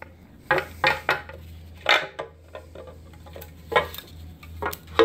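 Cast aluminium timing chain front cover of a Kia 1.6 L GDI engine being pried loose and lifted off, giving about seven sharp, irregular metal clanks and knocks. A steady low hum runs underneath.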